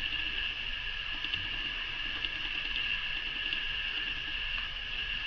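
A steady high-pitched hiss, with a few faint light ticks as a small sticker is handled and pressed on.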